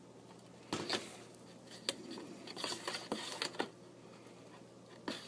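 Light clicks, taps and rustling from things being handled, in a cluster over the first few seconds and starting again near the end.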